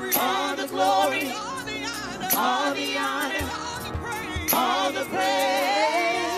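Woman singing a gospel worship song with a wide, wavering vibrato and sliding runs, over a steady instrumental accompaniment, with a second singer behind her.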